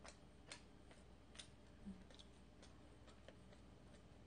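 Near silence with faint, irregularly spaced small clicks, about one or two a second: a metal fork touching a ceramic plate and the soft mouth clicks of chewing rice cake.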